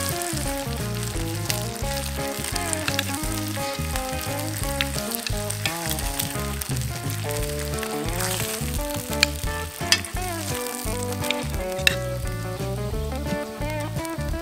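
Home-cured bacon sizzling and crackling in hot fat in a cast-iron skillet, with a few sharper clicks about nine to twelve seconds in. Background music plays underneath.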